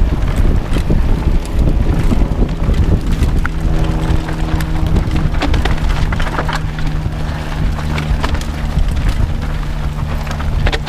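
Orbea Oiz mountain bike descending rough dirt singletrack, heard from a camera mounted on the bike: wind buffeting the microphone, and the bike clattering and knocking over rocks and ruts. A steady low buzz joins in about a third of the way through.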